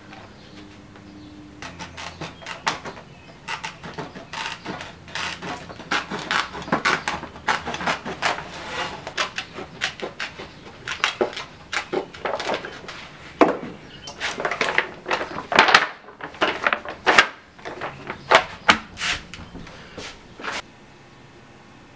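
Tin snips cutting through a stiff sheet of dried drumhead hide: a long run of sharp, irregular crunching snips, one to two a second, stopping near the end.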